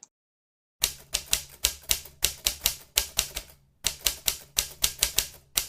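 Typewriter keys clacking in a quick run of keystrokes, about five a second, with a short break about three seconds in.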